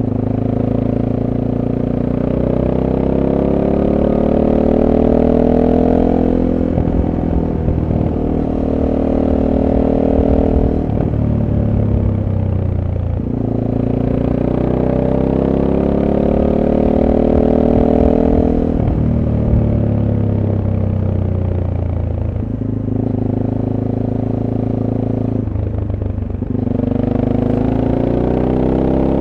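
SWM Super Dual T motorcycle's single-cylinder engine through its stock exhaust, on the move: engine pitch climbs steadily under acceleration for several seconds, then falls back sharply, about five times over.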